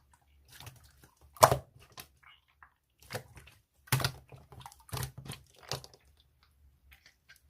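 Slime being squeezed and poked by hand, making irregular sticky clicks and crackly pops, the louder ones about a second apart.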